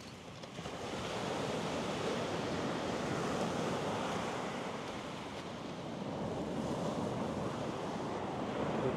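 Sea surf breaking and washing onto the beach: a steady rush that swells about a second in, eases off in the middle and builds again near the end.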